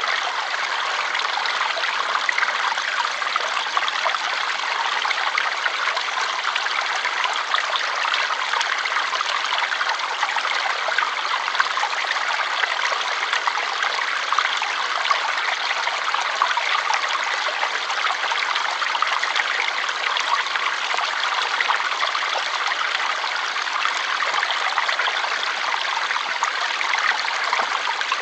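Flowing water running steadily, an even rushing sound that is bright and light with no deep rumble and no breaks.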